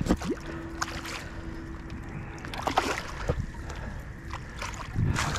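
Shallow water splashing and sloshing around a landing net holding a freshly caught northern pike, in short irregular bursts, with scattered knocks from handling the net.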